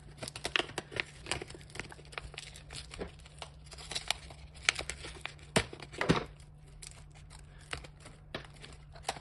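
Clear adhesive tape being peeled and pulled off the green paper wrapped around a LiFePO4 battery's cell pack: irregular crackling and tearing, with a few sharper snaps a little past halfway.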